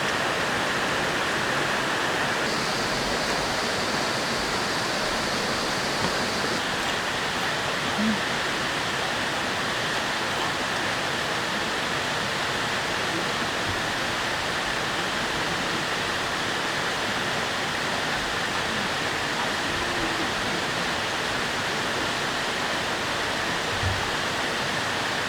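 Valley stream's water flowing steadily, a constant even rush.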